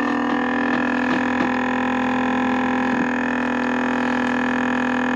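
Countertop vacuum sealer's pump motor running with a steady, even hum while it draws the air out of a plastic bag.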